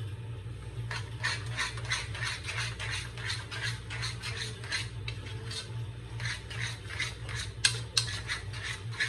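A utensil stirring in a cooking pot, scraping against its sides in a steady rhythm of about two to three strokes a second, with two sharper clinks near the end.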